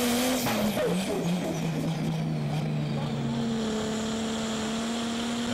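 Turbocharged IH 436 straight-six diesel of a Pro Stock pulling tractor running hard under load as it completes a full-distance pull. Its note drops about a second in, then settles steady again.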